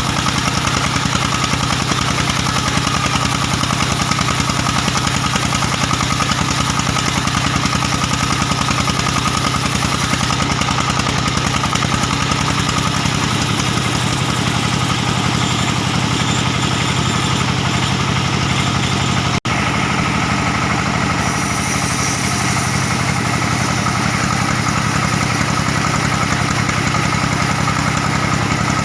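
Stationary diesel engine driving a sawmill band saw, running steadily at speed with a fast even pulse. There is a momentary break about two-thirds of the way through.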